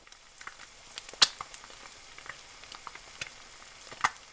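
Frying sizzle: a steady hiss broken by many irregular sharp pops and crackles, the loudest a little over a second in and another near the end.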